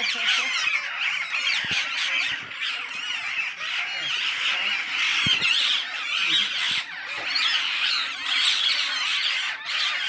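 A flock of rose-ringed parakeets calling all at once: many overlapping shrill squawks and screeches making a constant chatter.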